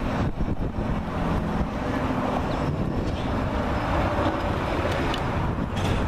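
Steady low outdoor rumble: wind buffeting the microphone mixed with distant engine noise.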